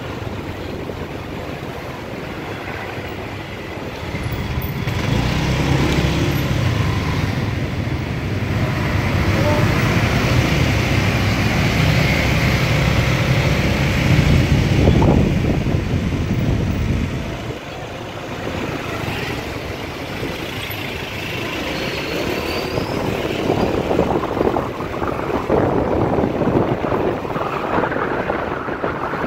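Motor scooter running at road speed with wind rushing over the microphone and street traffic around it. The engine noise grows louder for a long stretch in the middle, while another scooter rides close alongside.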